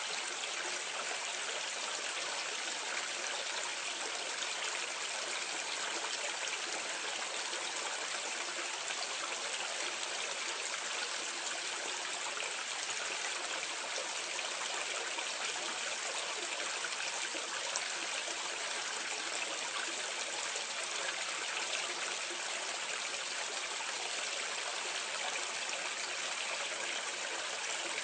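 Water pouring steadily out of a drain into a gully, a continuous splashing rush heard from medium distance, even and unchanging throughout.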